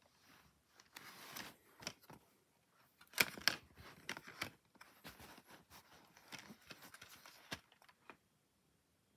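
Hard plastic DVD case and discs being handled: the hinged disc trays are turned, giving scattered clicks, rattles and rubbing, loudest about three seconds in and stopping about eight seconds in.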